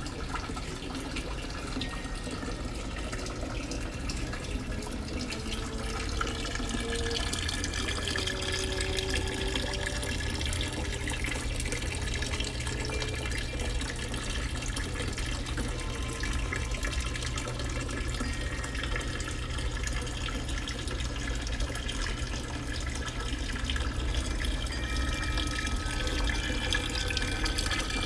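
Lion-head wall fountain: a thin stream of water pouring into a stone basin, a steady splashing trickle that grows a little louder about six seconds in.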